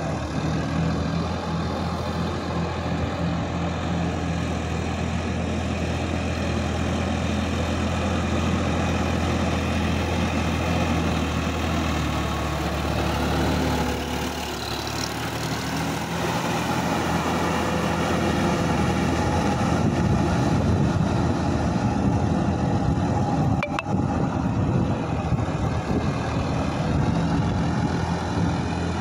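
Sonalika DI-50 RX Supreme tractor's diesel engine running steadily as it works through a flooded paddy field. From about halfway through it is nearer and a little louder.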